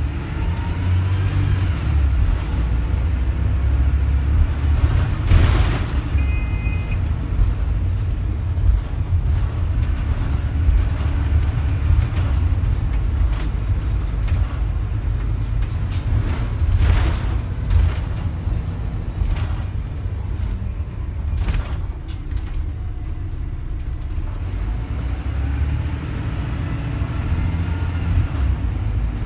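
MAN 14.240 bus's diesel engine and driveline running under way, heard from inside the saloon, with a whine that rises and falls near the start and again near the end as the bus accelerates and slows. A few short hisses come about five seconds in and again around the middle.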